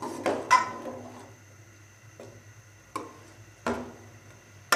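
Metal ladle stirring and frying chicken pieces in a yogurt masala in an aluminium pot, knocking against the pot about five times, over a low steady hum.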